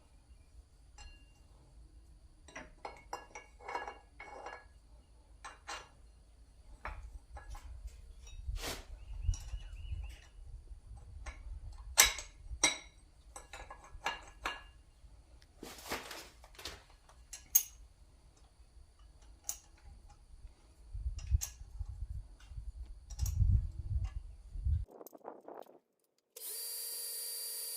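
Irregular clinks and knocks of tools being worked by hand, over low rumbling handling noise. Near the end the sound cuts off, and a steady machine hum with several tones follows.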